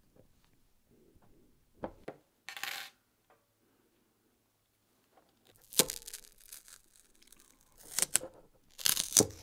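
Clear sticky tape being peeled off a phone's speaker grille: short noisy rips, one about six seconds in and two more close together near the end, after a small click and a brief rustle early on.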